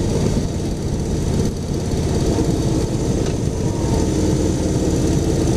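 Harley-Davidson Softail Slim's Twin Cam 103 V-twin engine running steadily while the motorcycle rides along.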